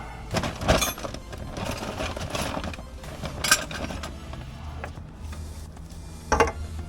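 Hand tools working on a car's rear brake hub: mechanical rattling with sharp metal knocks about a second in, near the middle and near the end.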